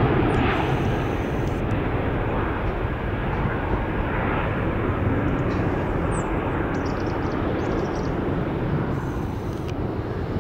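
Four General Electric CF6-80C2 turbofans of a Boeing 747-400 freighter running at climb power just after take-off, a steady jet roar that slowly fades as the aircraft climbs away.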